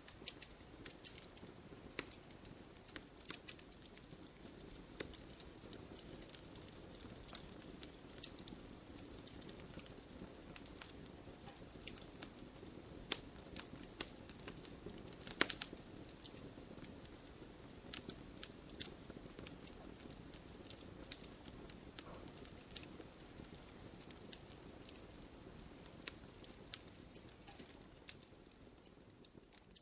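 Wood fire in a fireplace crackling, with irregular sharp pops and snaps over a soft low hiss of flames, one louder pop about halfway through. The fire fades down near the end.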